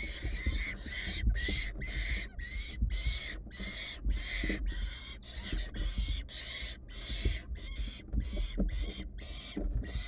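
Barn owl nestlings giving their rasping, hissing begging calls in a rapid series, about two to three a second. Under the calls are low thumps and scuffles of the chicks moving and flapping their wings on the nest-box floor.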